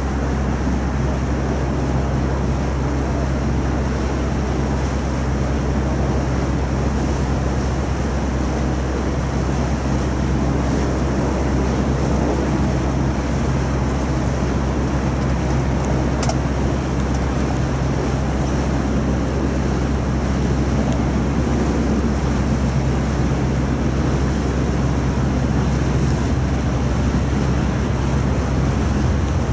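River tour boat's engine running with a steady low hum, under a constant rush of water and wind noise on the microphone.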